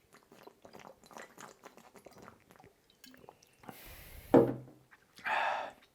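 A person drinking: soft mouth and swallowing clicks, a louder gulp about four seconds in, then a short breath out near the end.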